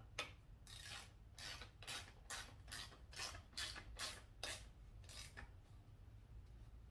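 Hand ratchet wrench being worked in quick strokes, about two to three a second, tightening bolts down; the ratcheting stops about five seconds in.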